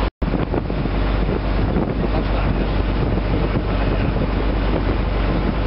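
Steady engine rumble of a riverboat under way, with wind buffeting the microphone; the sound drops out for an instant right at the start.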